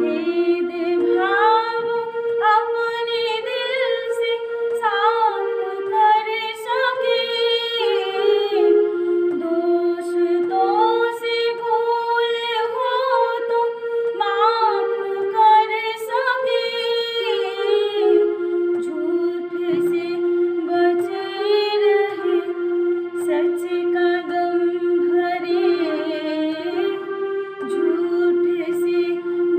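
A woman singing a slow song solo, with many long held notes and gliding pitch between them.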